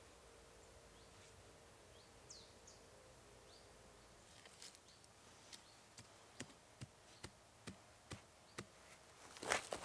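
A small hand tool chopping into the soft soil and needle litter of a forest floor to dig a planting hole. It strikes about twice a second from about halfway in, and the loudest strike comes near the end. Before that, faint bird chirps.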